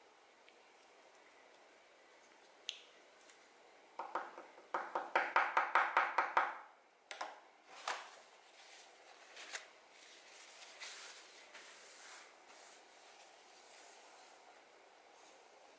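A metal nail clipper being handled on a wooden table: a fast rattling run of metallic clicks about four seconds in, a few single clicks as it is set down, then a hand softly brushing nail clippings off the tabletop.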